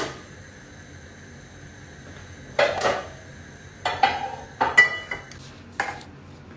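Non-stick frying pan knocking and clanking against the black pan grates of a gas hob as it is set onto the burner: four short knocks over a few seconds, one with a brief metallic ring.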